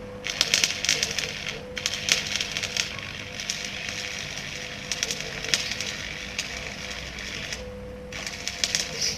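Electric arc welding on a steel tube frame: the arc crackles and sizzles in runs of one to several seconds, stopping briefly between them, with the longest break near the end.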